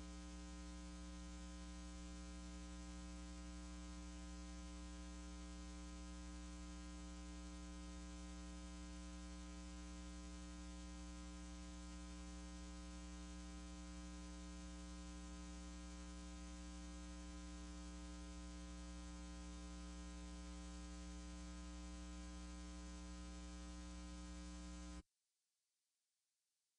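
Steady electrical mains hum with a buzzy edge and a layer of hiss, unchanging, cutting off suddenly about two seconds before the end.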